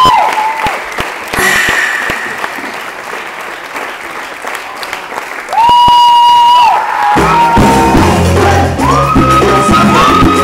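Crowd applause and cheering that dies down, then a single high, steady whistle blast about a second long just past halfway. About a second later Latin percussion music with a deep bass starts up.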